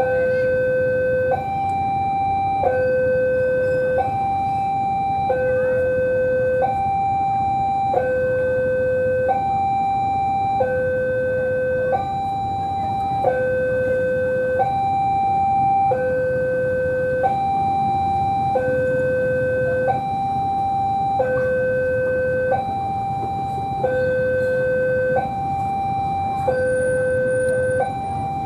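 Railway level crossing warning alarm sounding a steady two-tone alternation, a lower and a higher tone of just over a second each, repeating evenly: the signal that a train is approaching the crossing.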